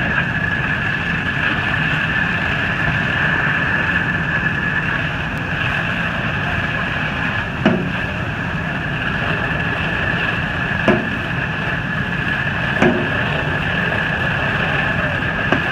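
Fire apparatus running hard as it pumps water through hose streams: a loud, steady engine rumble with a high pump whine over it. Three sharp knocks cut through, about eight, eleven and thirteen seconds in.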